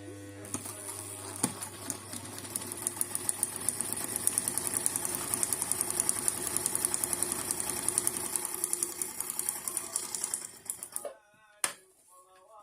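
Old Brother Riviera 110 electric sewing machine running a test seam after its thread tension wheel was repaired. The motor hums, then the needle mechanism clatters in a rapid, even rhythm that builds over the first few seconds and stops about eleven seconds in.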